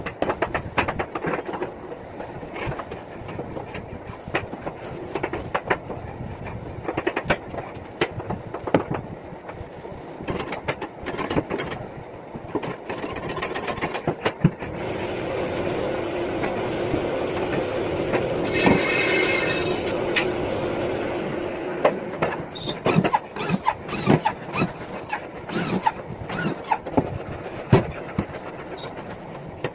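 Knocks and clatter of particle-board panels being handled and set into place. For several seconds in the middle a steadier mechanical running sound rises, with a brief squeal at its peak.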